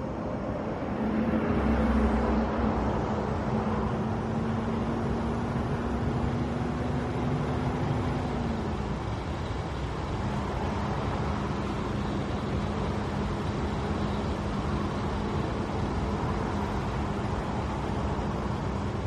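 Volvo FH heavy truck's diesel engine running steadily on the road, with tyre and road noise. It grows louder about a second in, and the engine note dips slightly about eight seconds in.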